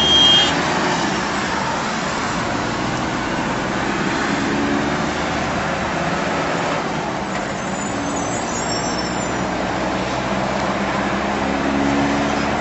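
Steady road and engine noise heard from inside a moving vehicle driving in highway traffic. There is a brief high-pitched tone right at the start.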